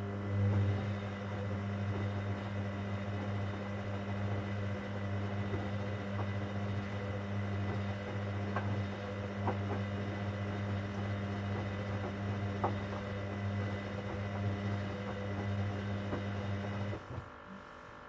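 Hoover Dynamic Next washing machine's drain pump running with a steady electric hum and light clicks of water, pumping out, then cutting off abruptly near the end.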